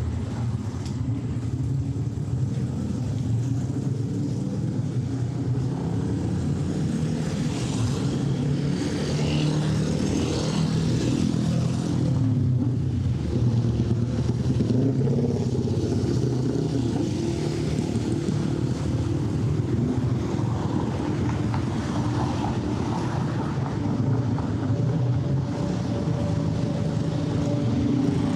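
Busy city road traffic: car and motorcycle engines running and passing in a continuous rumble, with a steady droning tone coming in near the end.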